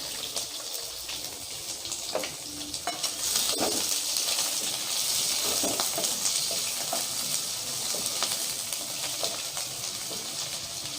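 Chopped onions sizzling in hot oil in a kadai, a steady frying hiss, with scattered light clicks and scrapes of stirring.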